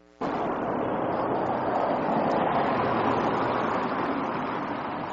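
Steady rushing outdoor background noise, with no distinct engine or voice in it. It cuts in abruptly just after the start, following a brief faint electrical hum.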